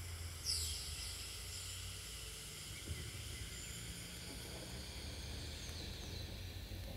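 Quiet opening of an ambient electronic track: a low bass hum under steady hiss, with thin high chirping tones. A quick falling sweep comes about half a second in, and a fainter one near the end.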